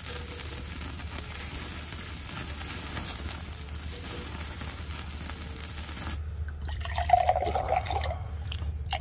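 Beef slices sizzling on a wire grill over open charcoal flames, a steady hiss for about six seconds. Then soju glugs from a glass bottle into a glass beer mug to make a soju-and-beer mix.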